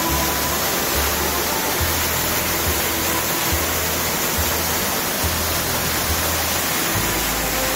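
A waterfall about 5–6 metres high pouring into its plunge pool, a steady, loud rush of water. Soft background music with a slow, regular bass runs underneath it.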